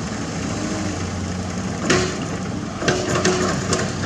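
Heavy diesel construction machinery running steadily, with a sharp metallic clank about two seconds in and a quick run of clanks and knocks near three seconds, like an excavator bucket striking rock and steel.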